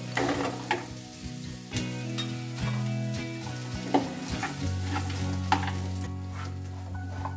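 Fried chicken pieces tipped into a hot nonstick pan of chillies and spices and stirred with a spatula: steady frying sizzle with scattered short knocks and scrapes of the spatula against the pan.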